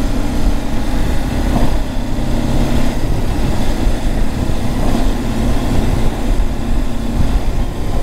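BMW G 310 GS's single-cylinder engine running steadily as the bike is ridden along a dirt road, with wind rushing over the handlebar-mounted microphone.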